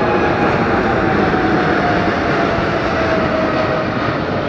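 Boeing 747-8F freighter's four GEnx turbofan engines passing low overhead: a loud jet rush with an engine whine that falls in pitch as the aircraft goes by.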